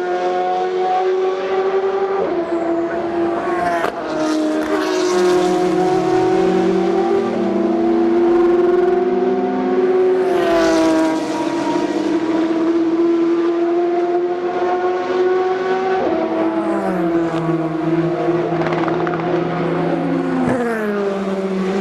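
Endurance race cars accelerating past out of a corner, several engines overlapping. Their engine notes climb steadily and drop sharply at gear changes about every few seconds as they upshift.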